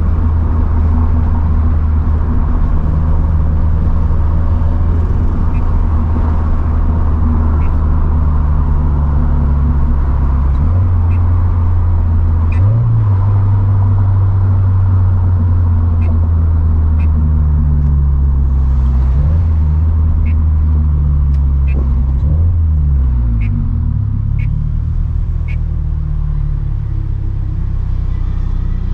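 Turbocharged 2013 Scion FR-S flat-four engine running at a steady cruise, a low steady drone. Its pitch steps up once near the middle and shifts several times in the second half.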